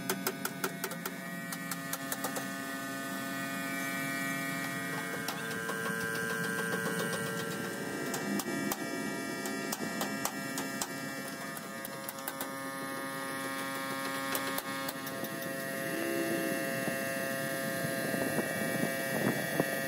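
Paint spray gun hissing over a steady mechanical hum with rapid ticking, the ticking thickest near the start.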